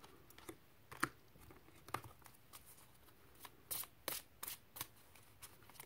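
Faint handling of a deck of reading cards: single soft snaps about one and two seconds in, then a quicker run of short clicks and slides from about three and a half seconds in as the cards are shuffled and handled.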